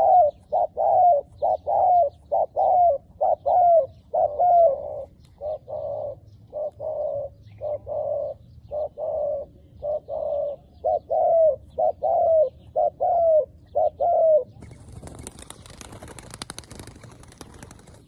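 Spotted dove cooing in a long run of short, slightly falling coos, about two a second. Near the end the cooing stops and a few seconds of rustling noise follow.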